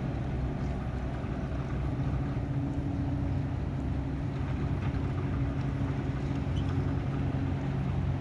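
Boat engine running at a steady speed: a low, even drone that holds without change.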